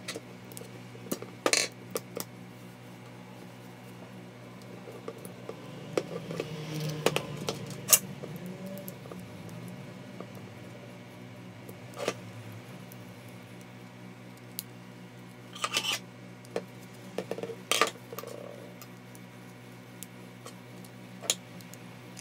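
Plastic housing parts of a Makita M693D impact driver being handled and fitted together by hand: scattered clicks, taps and knocks, with a busier patch of handling and rubbing about a third of the way in.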